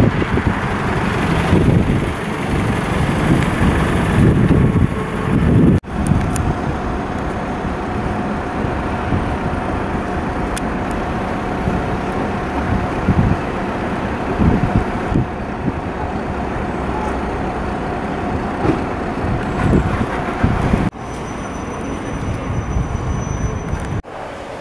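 Road traffic passing with wind rumbling on the microphone. The sound breaks off abruptly about six seconds in and twice near the end, and in the last few seconds it is quieter.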